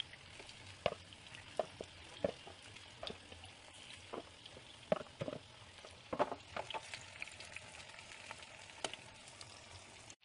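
Egg-and-cornflour-coated chicken pieces shallow-frying in hot oil in a pan: a steady sizzle with scattered sharp pops and crackles of spitting oil.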